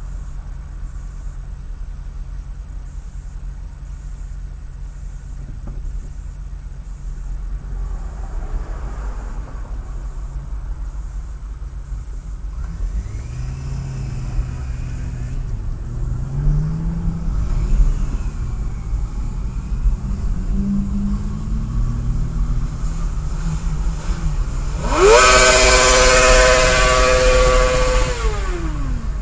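Low rumble of a car and traffic heard from inside the cabin, with engine pitch rising and falling as vehicles pull away midway. Near the end a motorcycle alongside revs loudly, holding a high pitch for about four seconds before it drops away.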